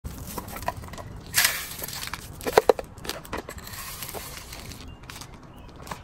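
Clicks, knocks and rustles from handling a post-mounted backyard bird feeder and a clear plastic container, with the feeder lid being lifted. The loudest sounds are a brief rustle a little over a second in and two sharp knocks about halfway through.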